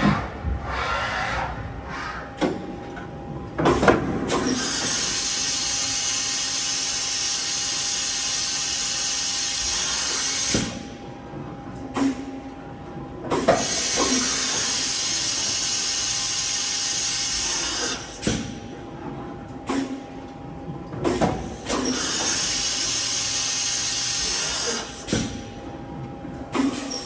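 Fadal VMC-4020HT CNC vertical mill's axes traversing under power: a steady whine and hiss from the axis drives in three runs of several seconds, each cutting off abruptly, with short knocks in between as moves start and stop.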